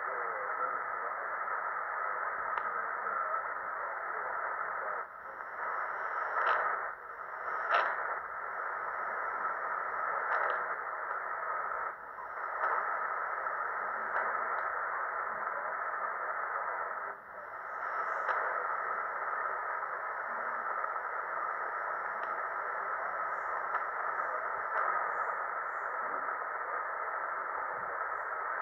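Tecsun PL-365 shortwave receiver's speaker hissing with steady static on the 20 m band in upper sideband, no station clearly heard. The hiss dips briefly a few times, and there are a few short crackles.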